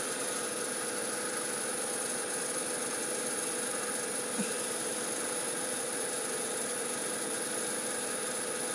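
Steady mechanical hum of a workshop machine left running, even throughout, with one faint click about four and a half seconds in.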